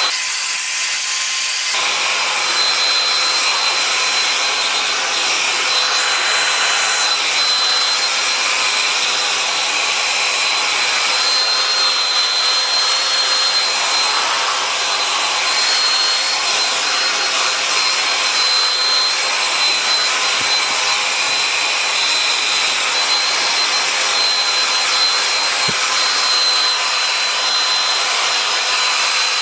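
Handheld hair dryer running steadily, blowing air onto hair, with a constant high whine over the rush of air.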